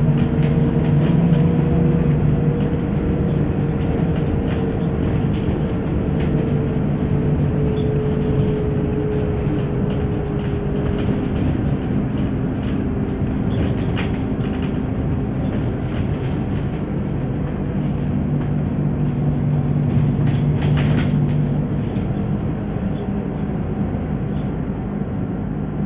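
Interior sound of a ZiU-682G-012 trolleybus under way: a steady hum with a whine that slowly falls in pitch over the first ten seconds or so, over a constant rumble with body rattles. A few sharp knocks stand out, one about halfway through and a short cluster later on.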